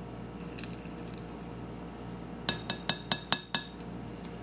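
A measuring teaspoon tapped quickly against the rim of the mixing bowl, about seven sharp clinks in just over a second about halfway through, over a steady low hum.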